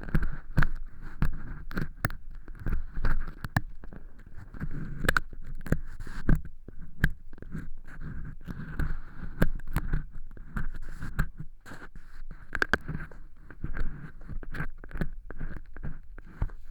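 An ear pick scraping through dry, crumbly cork-chip fake earwax inside an ear model, making a rapid, irregular run of crunchy scratches and sharp crackling clicks.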